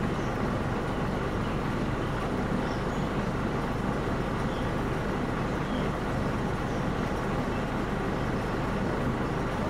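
Steady engine rumble from a heavy vehicle running without change.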